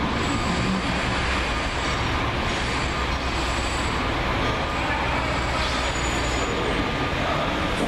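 Hyrail dump truck rolling along the rails: a steady engine rumble and rolling noise from its rail wheels, with a faint thin high squeal running through it.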